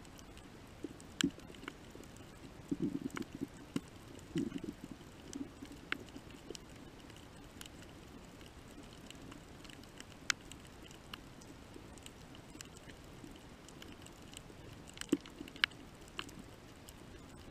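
Underwater reef ambience picked up by the camera: a faint steady hiss with scattered sharp clicks and crackles, and a few low muffled bursts in the first five seconds or so.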